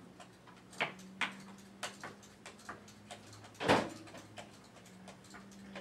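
A whisk clicking against a stainless steel mixing bowl as eggs are stirred, a tap every half second or so. About three and a half seconds in comes one much louder clatter of kitchenware, over a faint steady low hum.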